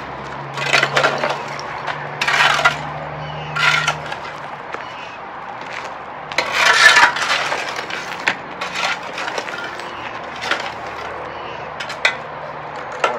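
Irregular clattering and scraping of broken concrete and rubble being cleared by hand, loudest about seven seconds in, over a faint steady low hum.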